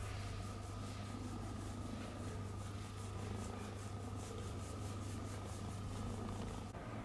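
A hand rubbing and stroking a cat's fur, a soft scratchy rubbing repeated about three or four times a second, over a steady low hum.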